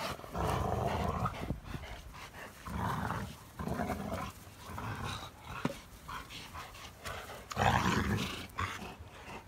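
Rottweilers growling in several rough bursts, the loudest near the end, while tugging and chewing at a plastic ball in rough play.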